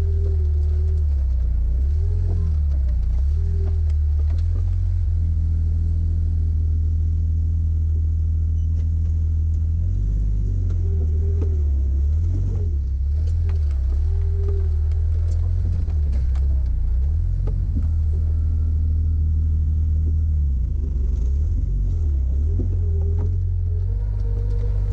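Jeep engine running low and steady at crawling speed over a rough dirt trail, heard from inside the cab, with scattered knocks and rattles from the body and suspension.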